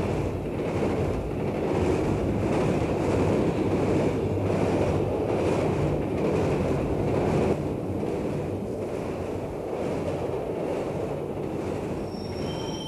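Train running along the track: a steady noisy rush with a faint regular beat. High wheel squeals begin near the end.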